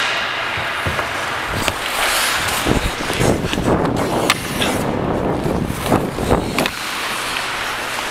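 Ice hockey skates striding and scraping hard across the ice, busiest through the middle few seconds and easing near the end, with a few sharp knocks mixed in.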